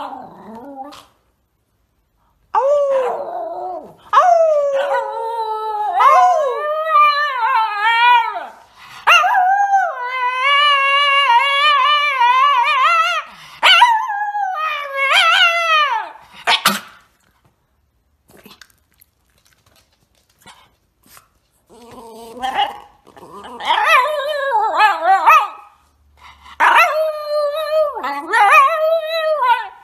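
Shiba Inu howling: long, wavering, sung howls that rise and fall in pitch. About halfway through it stops for a few seconds, then howls again in shorter bouts.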